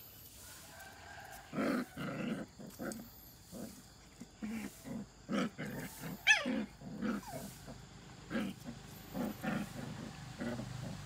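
Two puppies play-fighting, giving short growls and yips throughout, with one sharp, high yelp that falls in pitch about six seconds in.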